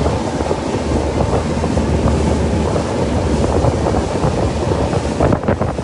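Steady rumble and rush of a boat under way, with wind buffeting the microphone.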